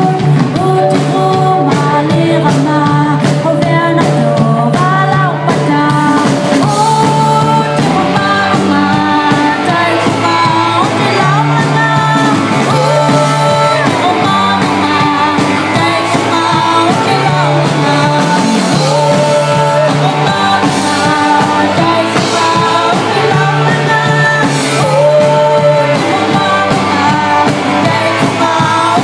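Live rock band playing a song sung in Inuktitut: a woman's lead vocal into a microphone over electric guitar and a drum kit.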